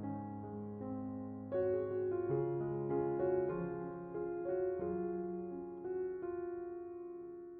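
Soft background piano music, slow chords and sustained notes.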